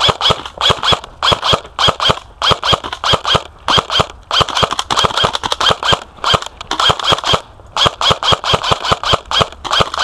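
Airsoft electric G3 rifle firing in short rapid bursts of a few shots each, about eight shots a second, with brief pauses between bursts.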